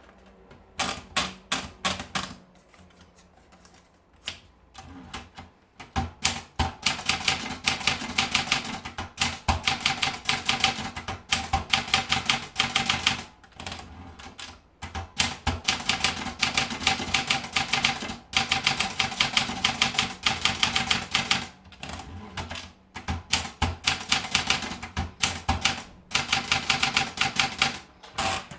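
Olympia Traveller portable manual typewriter being typed on: rapid runs of key strikes clacking in bursts of several seconds, with a few short pauses between runs.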